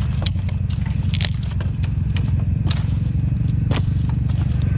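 ATV engine running steadily at low revs, with scattered sharp cracks and scrapes of twigs and branches breaking against the machine as it pushes through brush.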